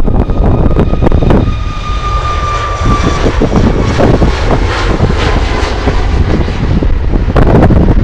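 Strong wind buffeting the microphone, a loud gusty rumble, over a jet airliner accelerating down the runway. Its engines give a steady high whine that sinks slightly in pitch over the first few seconds.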